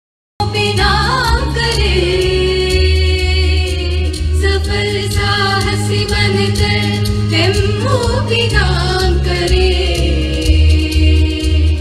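A choir of young women singing a song together into stage microphones. The singing cuts in abruptly just under half a second in.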